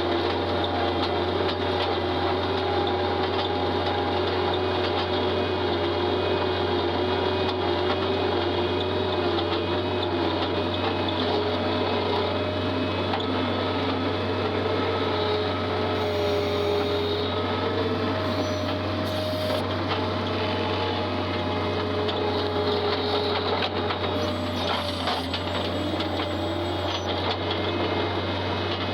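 Skid steer loader's engine running steadily under a continuous low drone, with a higher whine that wavers slowly in pitch.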